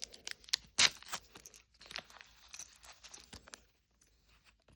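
Small plastic bag being torn open and handled, giving irregular crinkling crackles and snaps, the sharpest about a second in, fading out near the end.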